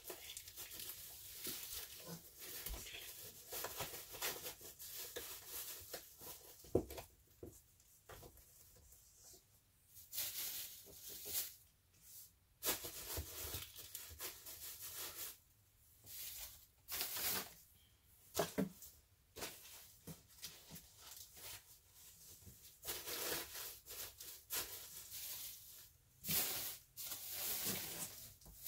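Plastic shopping bags rustling and crinkling in irregular bursts while goods and clothes are handled and packed into cardboard boxes, with a few soft knocks.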